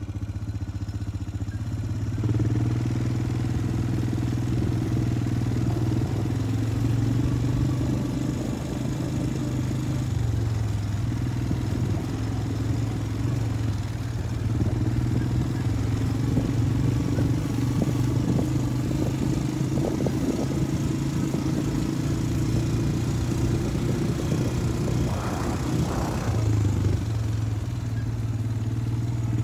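A small engine running at a steady speed, a constant hum that swells and eases slightly in level.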